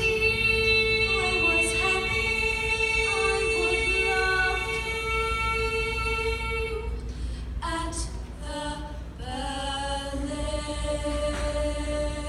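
Young voices singing long held notes of a show tune. About seven seconds in, the held notes give way to a brief break with a few short sharp sounds, and new sustained notes begin about two seconds later.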